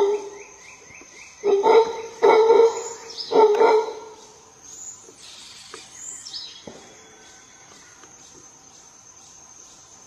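Mantled howler monkey giving a run of short, hoarse barking roars that stop about four seconds in. A steady high insect buzz runs underneath, with a few faint bird chirps later.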